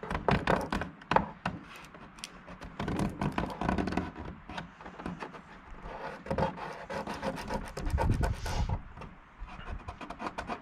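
Fingers rubbing and pressing a freshly super-glued piece down onto the heater's plastic housing to work out the air bubbles: a run of irregular rubbing and scraping strokes with small clicks, coming in several louder spells.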